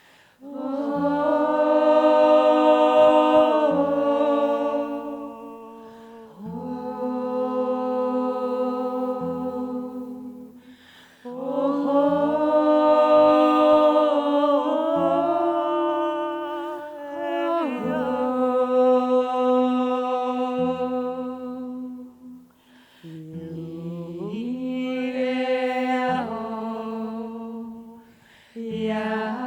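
A small a cappella vocal ensemble humming and singing a slow lullaby in long held notes, phrases of a few seconds each separated by short breaths, with low held tones sounding beneath.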